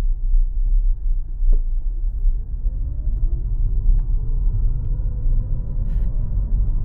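Steady low rumble of a car on the move, heard from inside the cabin, with a faint engine note rising in pitch through the middle as the car speeds up.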